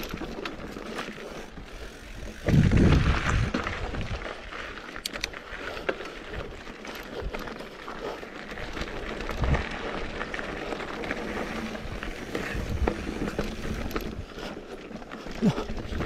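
Mountain bike rolling over a rocky dirt singletrack: tyres on dirt and loose rocks with the bike rattling over bumps, and a loud rush of wind or a jolt on the microphone about two and a half seconds in, lasting about a second.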